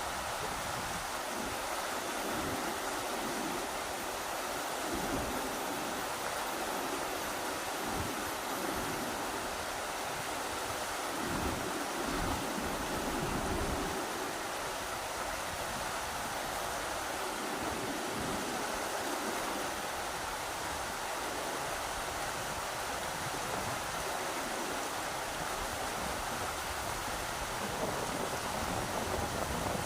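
Rushing river water, a steady, even rush, with gusts of strong wind buffeting the microphone now and then, heaviest around the middle.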